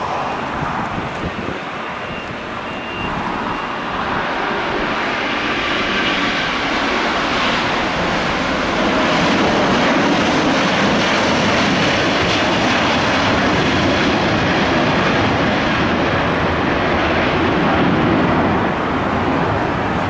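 Airbus A380's four jet engines at takeoff thrust: a broad roar that builds over the first few seconds and is at its loudest for most of the second half, dropping off a little near the end.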